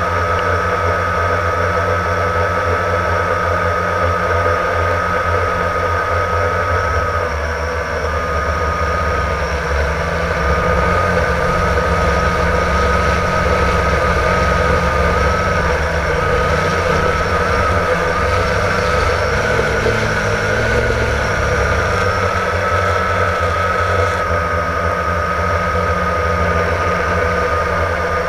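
Blade 350 QX quadcopter's brushless motors and propellers whining steadily, recorded by the GoPro mounted on the aircraft, over a strong low rumble. The pitch wavers slightly in the middle as the throttle changes.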